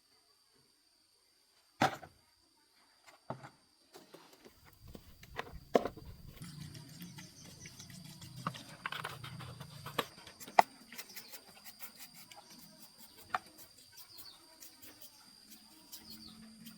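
Scattered sharp knocks and clicks, with a low hum through the middle and faint steady high tones in the second half.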